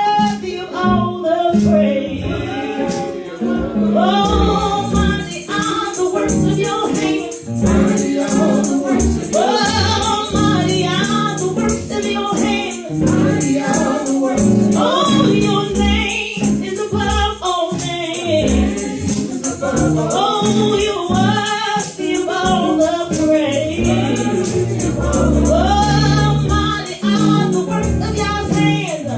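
Gospel worship song sung by a group of voices, with instrumental accompaniment and a tambourine shaken along steadily.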